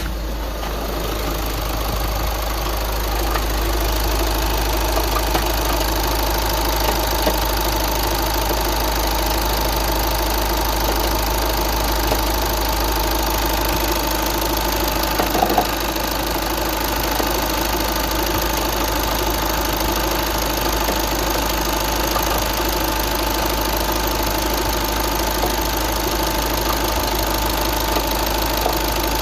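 VW Tiguan 5N engine running steadily, with a knocking noise whose cause the owner does not know, and a few sharper knocks about halfway through.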